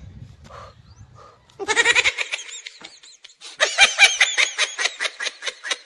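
An animal bleating, like a goat: two loud, high-pitched, quavering calls, a short one about one and a half seconds in and a longer one from about three and a half seconds in.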